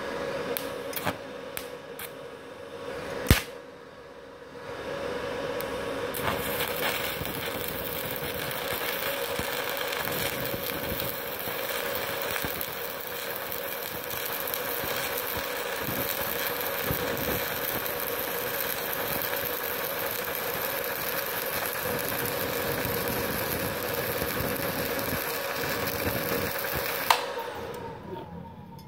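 Stick (MMA) welding arc from a Multipro MMA 160G-KRK inverter at about 50 amps with a 2 mm electrode: a few sharp clicks as the rod is struck, then the arc running steadily for over twenty seconds. Near the end it cuts off suddenly with a click as the 900-watt household supply's breaker (MCB) trips under the long weld.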